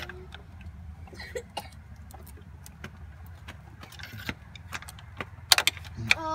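Metal hand tools clicking and clinking against engine parts under a car's hood as a spring hose clamp is worked on, over a steady low rumble. The sharpest clicks come near the end.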